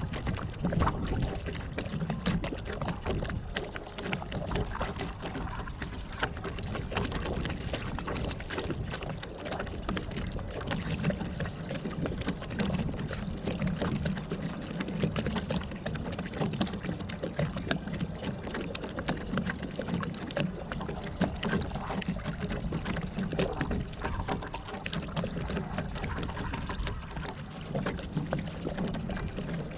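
Water splashing and churning around a pedal-powered waterbike moving on the water: a steady rushing noise dotted with many small splashes.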